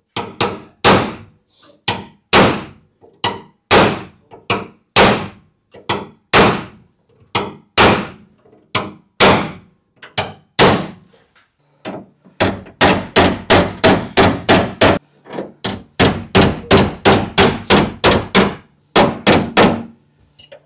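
Steel hammer blows ringing on a chisel and on the sheet-steel rear panel of a classic Lancia coupe, worked while a chain pull holds the panel under tension so it won't spring back. The strikes come about every two-thirds of a second at first, then in quicker runs of about four a second from about twelve seconds in.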